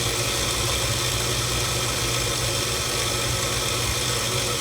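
Bullet-style personal blender running steadily on a thick load of frozen pineapple and ice cream, an even motor hum. The mix is too stiff to blend well and needs more juice.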